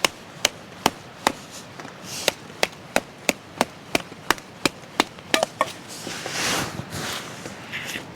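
Wet kindling wood being chopped: a quick, even run of sharp strikes about three a second, stopping about five and a half seconds in, followed by a couple of seconds of rustling as the pieces are handled.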